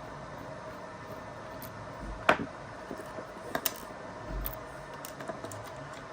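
A few small, sharp clicks and taps of a screwdriver and screws being worked out of a map light housing, the sharpest about two seconds in, over a steady background hum.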